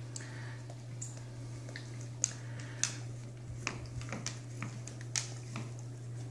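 A dog nosing and licking at a biscuit on a hardwood floor, making scattered small clicks over a steady low hum.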